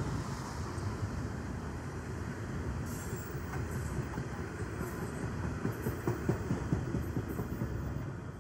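A train rolling past, a steady low rumble with rapid wheel clacks over the rail joints that are most frequent a little past the middle, the rumble easing off near the end.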